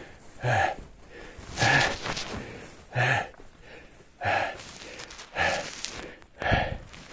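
A man panting hard with short grunts, six heavy breaths about a second apart, from the strain of hauling himself up a rope on a steep cliff.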